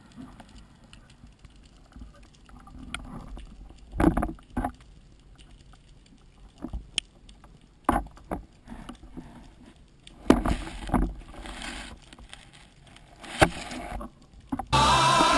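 Underwater sound of a freediving spearfisherman: a low murky hiss broken by scattered knocks and clatters as the speargun and diver bump against rock while pushing into a crevice. Background music comes in just before the end.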